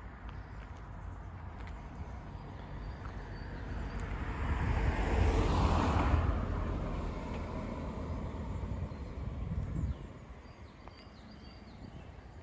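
A car drives past, its tyre and engine noise growing to a peak about halfway through and fading away, over a steady low rumble.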